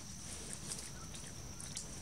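Quiet outdoor ambience: a steady high-pitched whine over a low rumble, with a few faint clicks.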